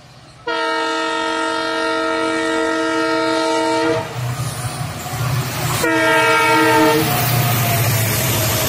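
Multi-tone horn of an approaching WDP4D diesel locomotive: one long blast, then a shorter one about two seconds later. Then the locomotive and coaches pass at speed, the train noise building toward the end.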